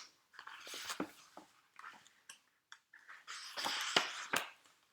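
Faint paper rustling with a few small clicks, as a book page is handled and turned. The rustling is loudest about three and a half to four and a half seconds in.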